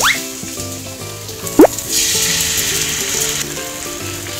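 Pork ribs sizzling and spattering in caramelized sugar in a wok, stirred with a wooden spatula, with background music. A quick rising whistle comes near the start and a louder one about a second and a half in.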